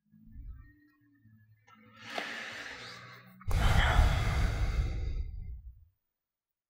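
A person sighing: a breath in, then a longer, louder breath out lasting a little over two seconds.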